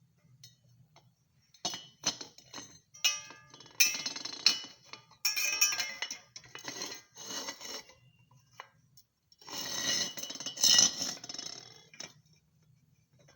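Metal clinking, knocking and scraping in irregular bursts, typical of steel square pipe and hand tools being handled and worked on a bench. The longest scraping stretch comes near the end.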